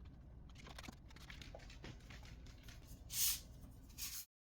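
Light clicks and rustling of drum-kit cables being handled and plugged in, with a louder brushing rustle about three seconds in and another shortly after four seconds; the sound then cuts off abruptly.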